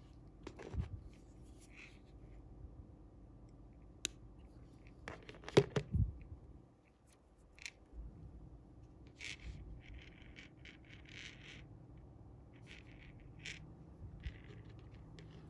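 Hands handling monofilament fishing line and a metal barrel swivel while tying a knot: scattered soft scrapes and small clicks, with a sharper cluster of knocks about five to six seconds in.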